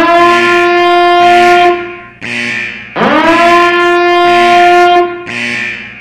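Alarm sound effect blaring in repeated long horn-like blasts. Each blast sweeps quickly up in pitch, then holds one steady tone for about two seconds, and a new blast starts about every three seconds. Quieter, lower tones sound between the blasts.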